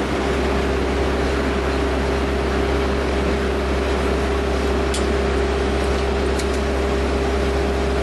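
Engine crusher running steadily: a loud, even machine hum with a constant mid-pitched tone over a dense rumbling wash, broken by two short sharp clicks about five and six and a half seconds in.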